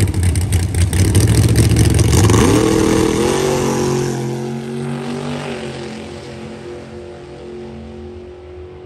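Drag race car engine revving loudly, then pulling away down the strip: its note climbs in pitch about two seconds in, then holds steady and fades as the car gets farther off.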